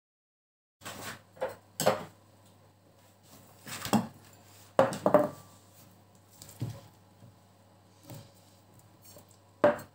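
Kitchen handling: a series of separate short knocks and clinks at irregular intervals as a drinking glass and packets of sliced ham are picked up and set down on a countertop beside a serving platter.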